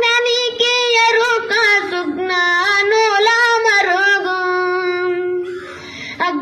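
A boy singing solo into a handheld microphone with no accompaniment. Near the end he holds one long note that fades, pauses briefly, and starts the next phrase.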